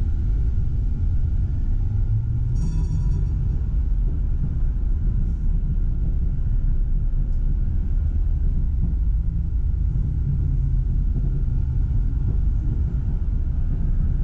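Tram running along the track, heard from inside at the front: a steady low rumble with a faint steady whine above it. A short high-pitched ring comes about three seconds in.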